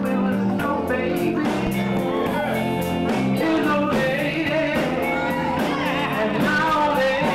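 A man singing a soul song over band music with a steady beat.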